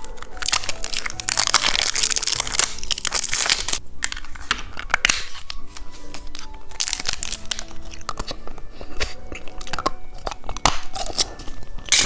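Candy packaging crinkling and tearing, with crunching and chewing of candy, over light background music.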